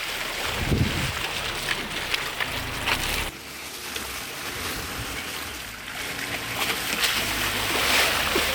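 2019 Suzuki Jimny driving through a water crossing: water splashing and sloshing around the vehicle over its running petrol engine. The rush drops suddenly about three seconds in, then builds again.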